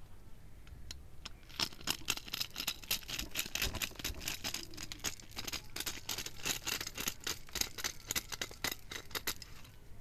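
Dried corn kernels snapping off the cob in a hand-held corn sheller as the cob is worked through it: a rapid, dense crackle of clicks, with kernels clattering onto the pile. It starts about a second and a half in and stops shortly before the end.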